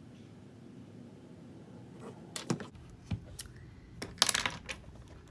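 Small plastic makeup items being handled and set down on a hard surface: a string of sharp clicks and light clattering, most of it in a cluster about four seconds in.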